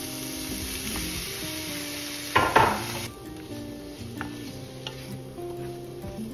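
Sliced onions sizzling in a frying pan, then strips of fish cake tipped in from a cutting board with a loud double clatter a little over two seconds in. After that the sizzle is quieter and a wooden spoon stirs the pan with a few light taps.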